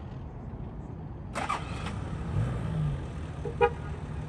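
Toyota Land Cruiser's 1HZ 4.2-litre diesel engine idling, with a brief rise in revs about two and a half seconds in. A short squeak comes about a second and a half in, and a brief sharp high sound, the loudest moment, comes a little after three and a half seconds.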